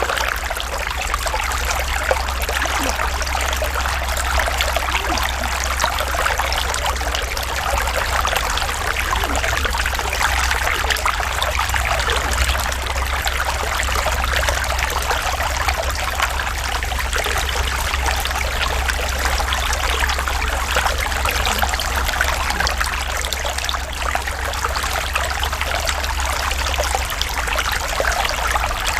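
Natural running water, a small stream trickling and splashing steadily, with a steady low rumble underneath.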